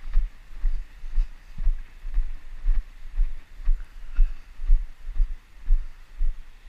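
Steady low thuds about twice a second, the jolt of walking footsteps picked up by a body-worn GoPro.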